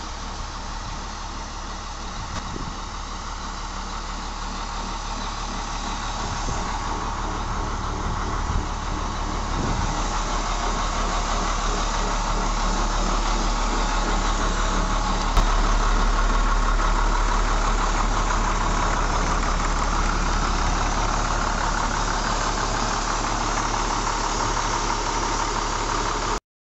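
International DT466 inline-six diesel engine idling steadily, growing gradually louder; the sound cuts off suddenly near the end.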